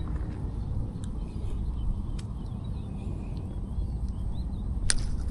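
Strong wind buffeting the microphone as a steady low rumble, with faint high chirps in the middle and a few sharp clicks, the loudest one near the end.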